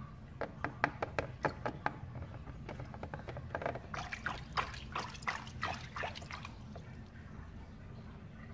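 A hand splashing and slapping water in a shallow plastic tub: a run of separate sharp splashes, then busier splashing from about four to six and a half seconds in.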